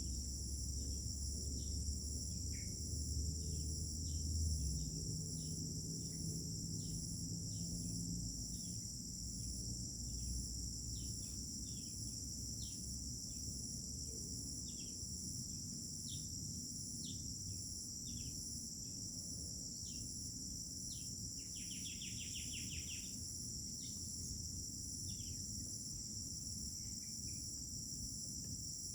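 A steady, high-pitched chorus of crickets trilling without a break, one strand of it pulsing, over many short, falling bird chirps repeated every second or so, with a brief buzzy call about two-thirds of the way through. A low rumble sits underneath during the first few seconds.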